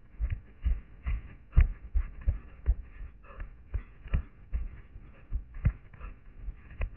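Running footsteps on a pine-forest floor of sand, dry grass and fallen twigs, picked up by a head-mounted camera: a steady run of thuds about two and a half a second, some with a dry crunch.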